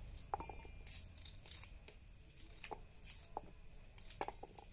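Chunks of fresh coconut dropped by hand into a stainless steel mixer-grinder jar: scattered light clicks and taps, about eight spread unevenly.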